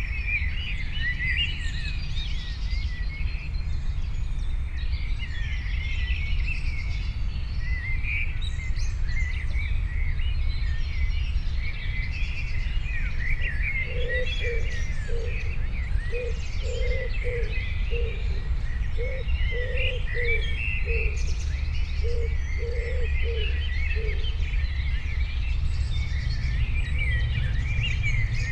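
A chorus of small birds chirping and trilling continuously over a steady low rumble of background noise. Around the middle, a lower-pitched short call repeats about a dozen times over some ten seconds.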